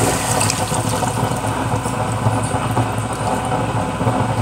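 Coconut milk poured from a container into a hot wok of chicken adobo, splashing and filling as the liquid lands, over a steady low hum.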